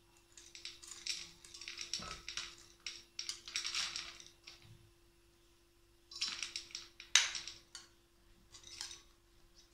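A plastic spoon scraping and tapping inside a glass bowl as ingredients are scooped into a pressure cooker. It comes in short scraping, rustling runs, with one sharp clink about seven seconds in.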